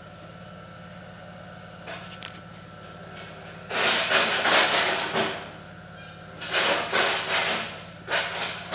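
MSC PM3043 metal-cutting bandsaw's electric motor running with a steady low hum. About three and a half seconds in come three bursts of harsh handling noise, the first the longest at about a second and a half, as a gloved hand works the hydraulic feed cylinder's control.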